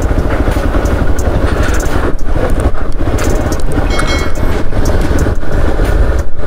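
Hero XPulse 200 4V's single-cylinder engine running at low speed as the motorcycle goes over a rough, rocky mountain track. The engine is overlaid with many short knocks and rattles from the bike over stones.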